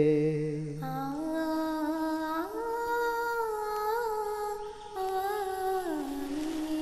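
Closing hymn of the Mass between two sung lines: a slow melody of long held notes stepping up and down in pitch, softer than the singing around it.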